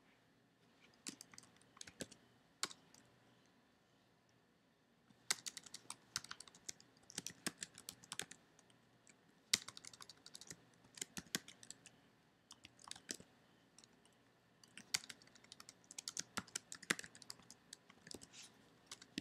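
Computer keyboard typing in quick runs of keystrokes, with a lull of a couple of seconds about three seconds in.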